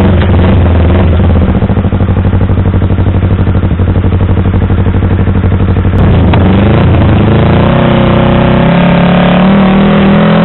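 Yamaha R25's 250 cc parallel-twin engine running through an aftermarket WRX exhaust, idling with a pulsing, lumpy beat. About six seconds in the pitch changes briefly, then the engine settles to a steadier, slightly higher note.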